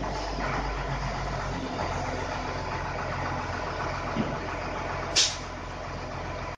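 Doosan SD200N wheel loader's Weichai WP6G12 diesel engine running steadily while the loader lowers its bucket, with a brief hiss about five seconds in.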